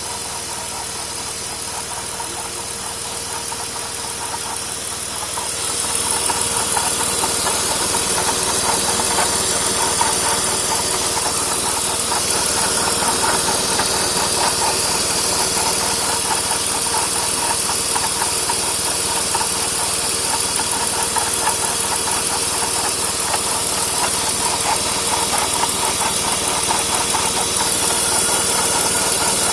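BMW E46 320i straight-six engine running with the abnormal mechanical noise the owner was chasing, which he traced to the AC compressor, the timing chain and VANOS, or the water pump and belt tensioner pulleys. Steady throughout, growing louder about six seconds in.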